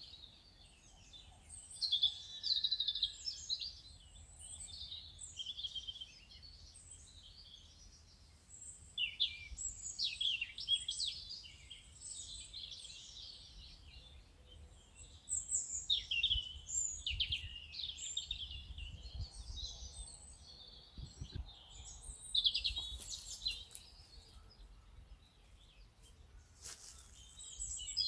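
Songbirds singing and chirping, several at once, in a dense chorus of quick, high chirps and trills that come in bursts.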